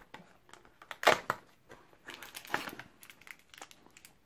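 A small silver foil treat packet being pulled out and crinkled as it is torn open, in irregular rustling crackles, loudest about a second in and again around two and a half seconds.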